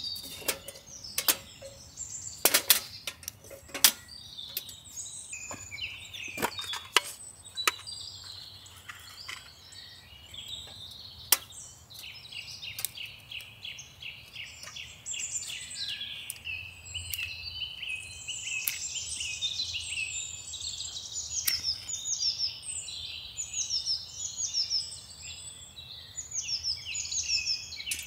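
Woodland birds chirping and singing, building to a dense run of quick, falling chirps in the second half. Sharp clicks and knocks are mixed in, most of them in the first several seconds.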